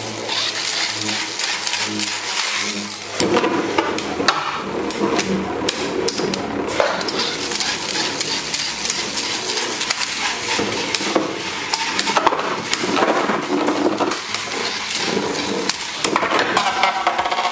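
Infinity Nado spinning tops whirring in a plastic battle arena, clattering and clinking as their metal rims strike each other and the arena walls, in a rapid run of clicks and knocks.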